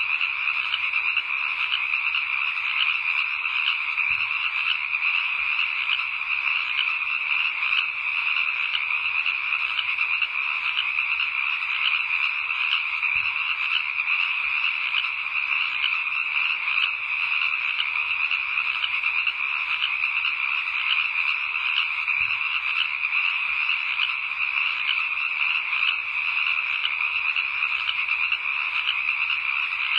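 A steady, unbroken chorus of many frogs calling, a dense mass of rapid trills that never pauses.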